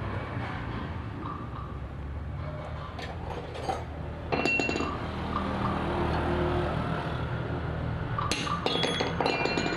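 Metal tools and parts clinking and ringing as an outboard motor is worked on: a couple of light strikes a few seconds in and a quick cluster of clinks near the end, over a steady low hum.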